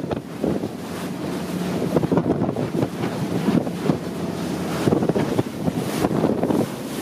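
Wind buffeting the microphone aboard a speeding powerboat, over the rush of churning water from its wake and a steady low engine drone.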